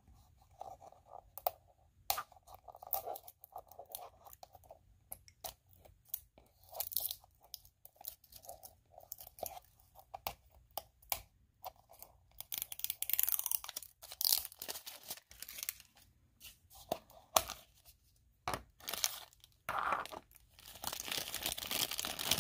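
Surprise toy egg being opened by hand: its wrapping crinkles and tears, with scattered clicks and crackles of plastic. The crackling comes in louder stretches about halfway through and again near the end.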